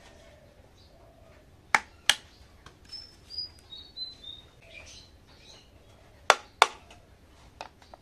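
Hard plastic toy cookware being set down: two sharp clacks about two seconds in and two more near the end, with a few softer knocks and some short high chirps in between.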